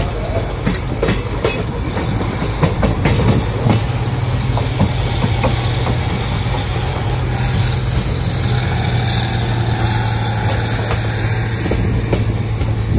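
Express train coaches rolling out of a station at low speed, heard from the coach side: the wheels clatter over rail joints and points in the first few seconds, then settle into a steady low running rumble.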